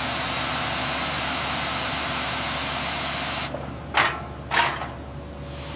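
Power sander running on steel hull plating with a steady hiss. It stops about three and a half seconds in, followed by two short, sharp bursts of hiss about half a second apart.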